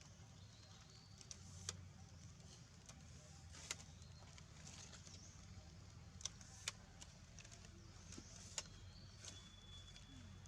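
Near silence: faint outdoor background hum with a handful of scattered sharp clicks and a few faint high whistle-like tones.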